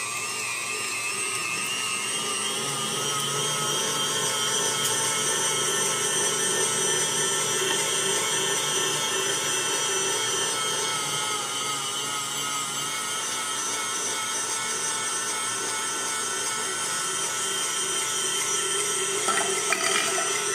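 Electric meat grinder motor running steadily under load as chunks of beef are pushed through it, a continuous whine that rises slightly in pitch in the first couple of seconds and then holds, wavering a little. A few light clicks near the end.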